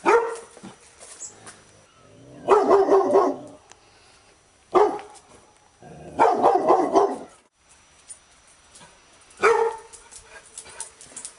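Labrador retriever barking: single loud barks at the start, about five seconds in and near the end, with two longer runs of quick barks between them.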